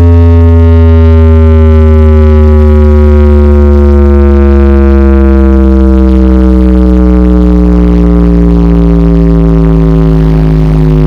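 Loud electronic bass tone with many overtones, played as a speaker sound test, held without a break and gliding slowly down in pitch.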